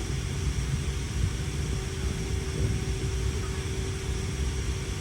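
Steady cabin noise inside a Boeing 717: an even rush of air over a low hum, with a faint steady tone.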